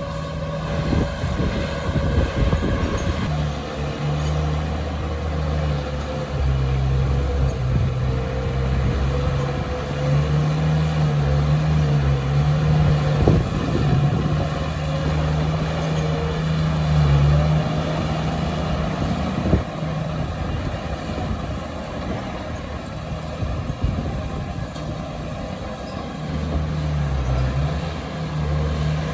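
Diesel engine of heavy earthmoving equipment running under working load, its pitch rising and falling, with a thin high whine over it.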